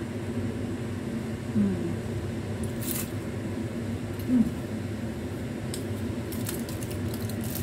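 Mouth sounds of eating a soft tuna-filled bread roll: soft clicks and smacks, strongest near the end, and two short hummed "mm" sounds, the second the loudest, over a steady low hum.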